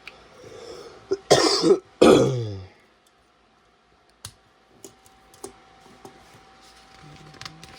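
A man clears his throat and coughs twice in quick succession, about a second in, the second one falling in pitch. A few faint sharp clicks follow.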